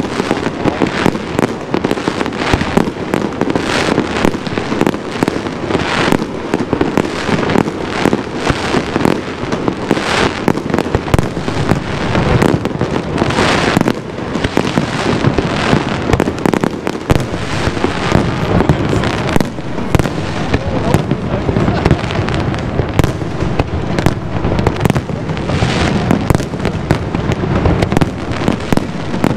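Aerial fireworks display: a rapid, unbroken run of bangs and crackles from shells bursting overhead.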